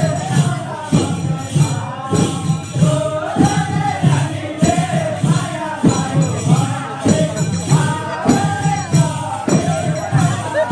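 Gurung kauda dance song: a melody sung over a steady beat, with a strong stroke a little over once a second and lighter ones between.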